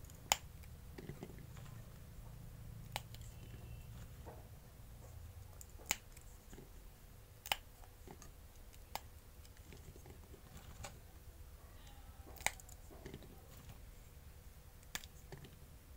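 Fresh green chillies being snapped in half by hand, one at a time. Each gives a short crisp snap, about one every one to two seconds.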